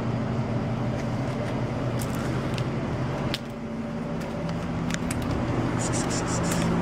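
Steady low hum of a vehicle engine and street traffic, with a few faint clicks. About halfway in the hum drops briefly and then carries on at a slightly different pitch.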